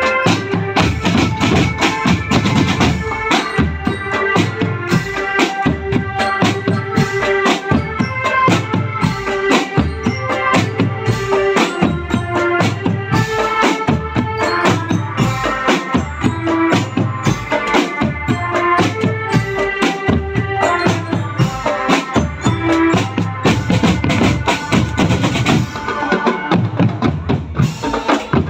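Marching drum band playing: snare drums, marching bass drums and tenor drums beating a steady rhythm, with a tuned melody line carried on top.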